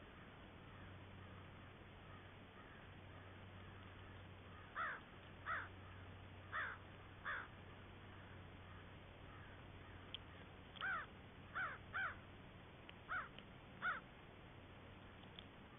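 American crows cawing: a run of four caws about five seconds in, then five more a few seconds later, over a faint steady low hum.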